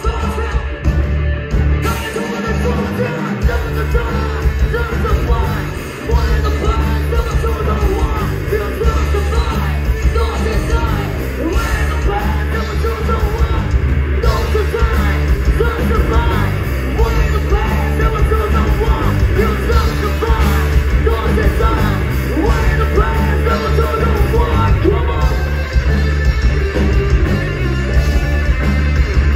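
Live rock band playing loud: drum kit, distorted electric guitars and bass, with a singer's voice over them, heard from within the audience.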